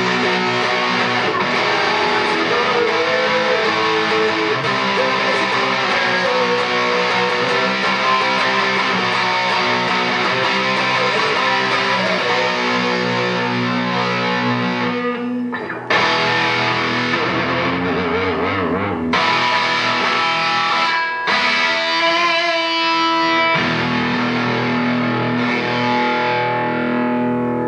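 Background music led by guitar, which briefly drops out a few times in the second half.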